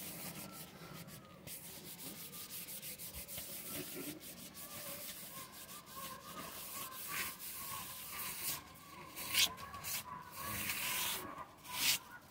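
Irregular scratchy rubbing and scrubbing strokes on a tiled floor, sparse at first and coming thicker and louder in the second half.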